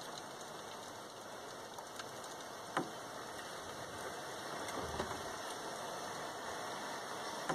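Steady hiss of a handheld gas torch flame heating a joint between a brass shower valve and copper pipe for soldering. A sharp tick sounds near three seconds in and a smaller one about five seconds in.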